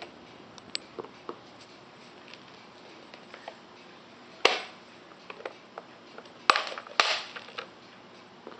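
Light plastic clicks and knocks, then a loud clack about halfway as the hinged plastic lid of a denture and retainer cleaning box is shut, followed by two more hard clacks near the end as objects are set down on the tabletop.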